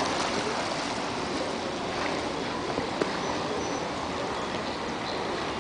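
Steady wash of sea water lapping and splashing, with a few faint ticks.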